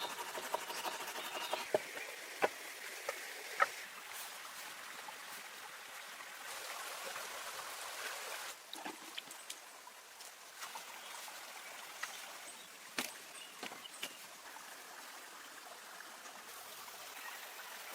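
Stream water running and trickling steadily, with scattered sharp clicks or snaps over it.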